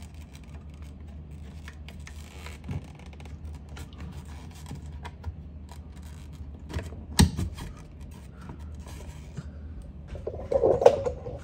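A slim LED recessed panel light being worked into a round cut-out in a drywall ceiling: small scrapes, rubs and clicks of plastic against the plasterboard. A sharp click about seven seconds in is the loudest sound, and a louder rustle comes near the end.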